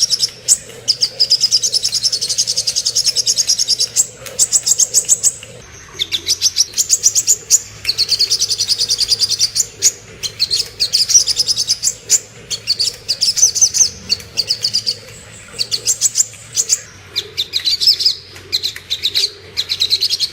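Songbird song of the kind played as a sogon lure call for trapping birds: high, rapid trills of clicking notes, about ten a second, in phrases of one to two seconds separated by short pauses.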